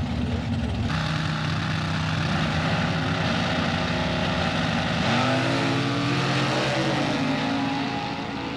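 Two drag-race engines, a dragster and a muscle car, held at raised revs on the start line. About five seconds in they launch hard, engine pitch climbing and dropping at gear changes as they pull away.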